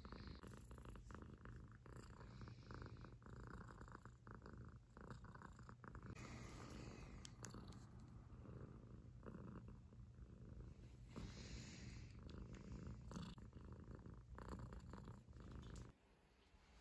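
Munchkin cat purring steadily, faint and close, stopping about a second before the end.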